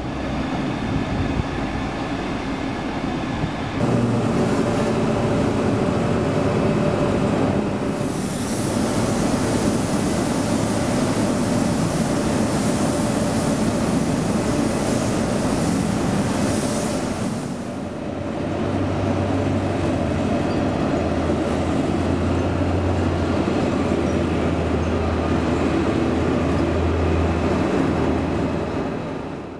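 Doosan DL200 wheel loader working, its diesel engine running steadily amid continuous plant machinery noise. A hissing rush lasts about ten seconds in the middle, while the bucket tips out its load. A low steady engine note comes in later as the loader drives.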